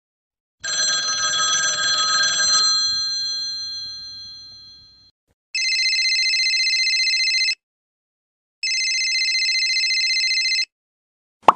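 A bell-like ring struck once, fading away over about four seconds. Then an old-style telephone bell rings twice, two fast-trilling rings of about two seconds each with a short pause between.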